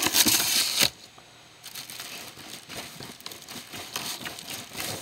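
Plastic packaging bags crinkling and rustling as parts are handled in a cardboard box: a loud crinkle in the first second, then quieter rustles and small ticks.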